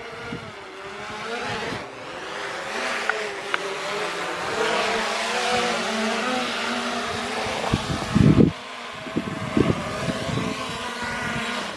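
Camera drone's propellers whining in flight, a buzzing pitch that wavers up and down as it manoeuvres. Gusts of wind thump on the microphone about eight seconds in.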